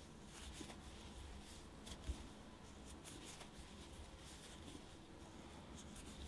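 Faint rustling of chunky yarn being worked with an 8 mm crochet hook, with a few soft ticks and one slightly louder one about two seconds in.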